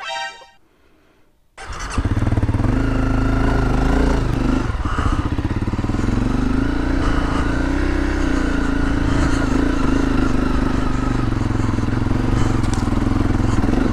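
Honda CRF250L's single-cylinder dirt bike engine starting up: a brief high-pitched tone, then the engine catches about a second and a half in and runs steadily.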